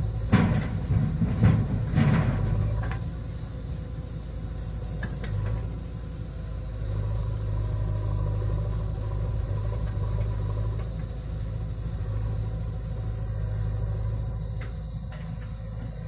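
Diesel engines of a JCB 3DX backhoe loader and a tractor running steadily as a low hum, under a steady high-pitched shrill of insects. A few sharp knocks and clatters in the first three seconds from the backhoe's bucket working the soil.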